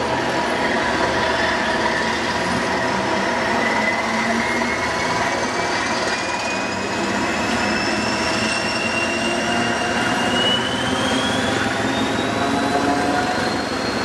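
Northern Ireland Railways 'Thumper' diesel-electric multiple unit pulling away, heard from an open carriage window. A steady engine and running noise lies under a whine that rises slowly and evenly in pitch as the train gathers speed.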